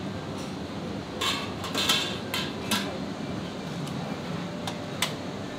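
Dishes and utensils clinking in a ramen shop: a run of sharp clinks about a second in lasting a couple of seconds, then two single clinks near the end, over a steady low background hum.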